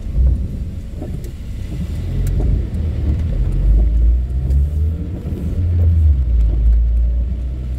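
Thunder rumbling low and rolling, swelling about halfway through, heard from inside a moving car in rain over its engine and tyre noise.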